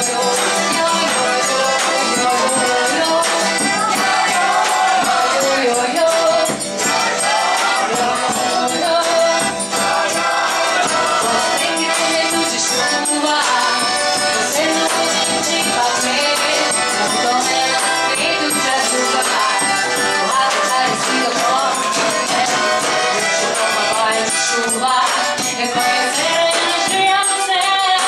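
Live folk band playing a lively song: several voices singing together over accordion and acoustic guitar, with a rattling hand-percussion beat.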